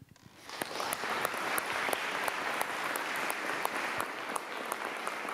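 Audience applauding, swelling up in the first second and then holding steady.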